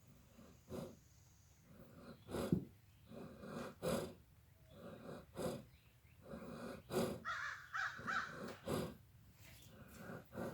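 A pet breathing hard: laboured, raspy breaths at about one a second, a few near the middle carrying a high squeaky edge.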